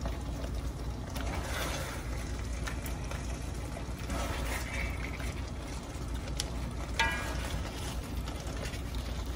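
Tomato braising sauce bubbling in a large wok as seared short ribs are set into it with tongs. A few light clicks of the tongs, the sharpest about seven seconds in.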